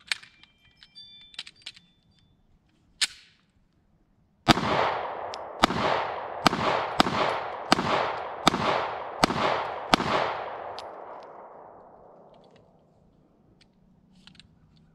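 Walther PPQ-SC subcompact 9mm pistol fired eight times at a steady pace over about five seconds, each shot trailing a long echo that dies away a few seconds after the last. A single sharp click comes shortly before the first shot.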